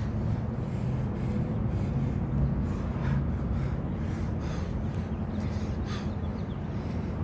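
A man breathes hard in short, sharp breaths every second or two while doing bodyweight squats. Under the breathing is a steady low outdoor rumble.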